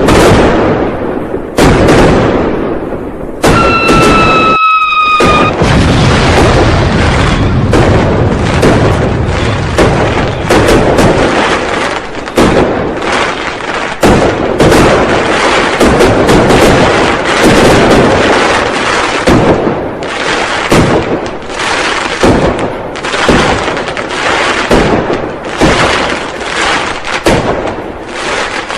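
Dense New Year firecrackers and fireworks going off, many overlapping bangs with no let-up. About three and a half seconds in, a high whistle sounds over them for about two seconds, falling slightly in pitch.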